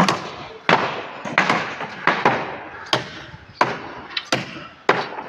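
Hammering: about eight sharp blows at a steady pace, roughly one every 0.7 seconds, each followed by a short ring.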